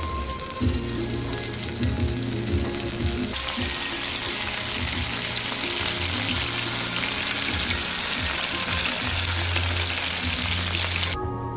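Stuffed chicken breasts sizzling in hot oil in a non-stick frying pan. The sizzle grows much louder and fuller a little over three seconds in and stops abruptly near the end, with background music underneath.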